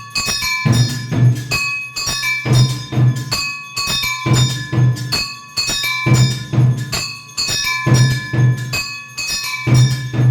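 Music of ringing bells over drum beats, in a steady rhythm that repeats about every two seconds.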